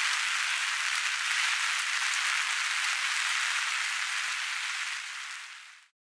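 A steady hiss with no low rumble, fading out near the end.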